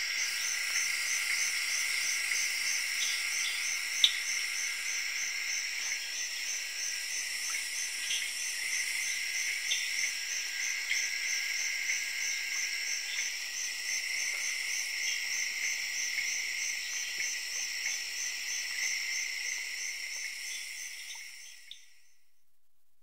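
Night chorus of insects in a Central African rainforest: a dense, steady shrill trill with a pulsing higher note and scattered short chirps. There is one sharp click about four seconds in, and the chorus fades out near the end.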